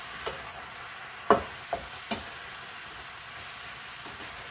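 Sliced mushrooms sizzling steadily in oil in a frying pan while a spatula stirs them, with four short scrapes and taps of the spatula against the pan in the first half.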